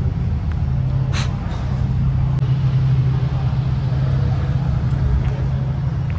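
Car engine idling with a steady low hum, and a short hiss about a second in.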